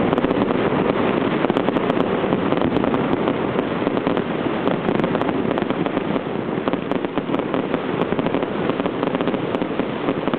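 Fireworks going off at close range: a continuous, dense crackling and popping of many small reports with no pauses.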